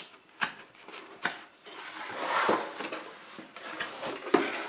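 Cardboard box being opened by hand: a few light clicks and taps as the seal is pulled, a longer rubbing rustle of cardboard sliding about two seconds in, and a sharp knock near the end as the lid comes off.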